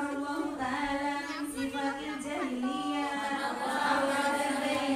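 Several women's voices chanting together without accompaniment, Quran recitation in a tadarus.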